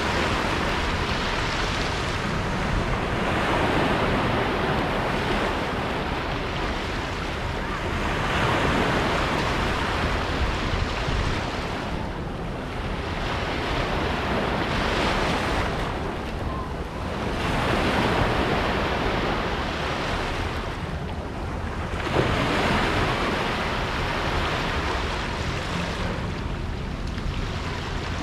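Small sea waves washing in over sand and rocks, swelling and falling back every few seconds, with a steady low rumble of wind on the microphone.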